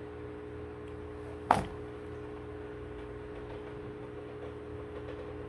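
A single sharp knock about one and a half seconds in, like a hard object set down or tapped on a surface, over a steady electrical hum.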